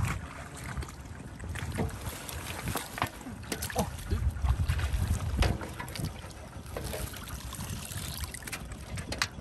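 Shallow muddy water splashing and sloshing as a plastic mesh basket is scooped through it and lifted, water running out through the mesh, with a few short knocks and a low rumble.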